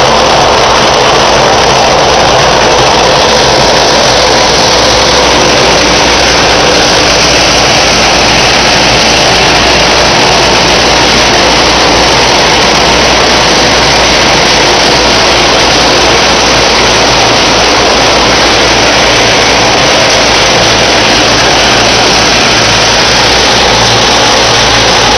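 Machinery of a PET bottle recycling line running: a loud, steady industrial din with a low hum underneath and no pauses.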